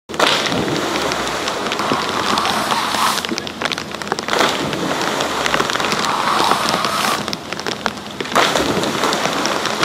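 Steady rushing, crackling hiss of water, swelling and dipping every few seconds.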